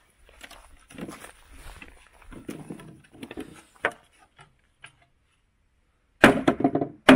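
Wooden pallet being pried apart by hand: light knocks and scrapes of wood and tools, then a much louder burst of wood noise about six seconds in and a short sharp hit near the end.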